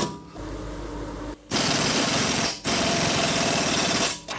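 Pneumatic impact wrench hammering in two bursts of about a second each, with a brief pause between, tightening bolts on a car's wheel hub during reassembly after a ball joint replacement.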